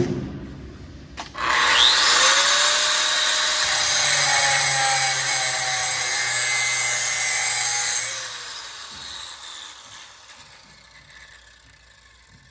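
Electric angle grinder fitted with a cutoff wheel. It is switched on and spins up with a rising whine, then cuts metal with a loud, steady, hissing screech for about six seconds. It is then released and winds down slowly.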